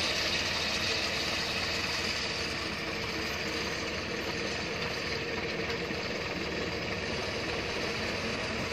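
Tractor engine running steadily while towing a gang mower across grass, getting slightly quieter a few seconds in.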